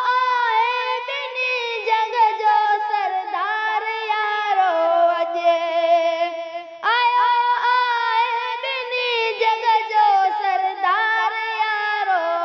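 Wordless high-pitched sung melody from a Sindhi naat recitation, in two phrases of long held and gliding notes; each phrase starts abruptly, the second about seven seconds in.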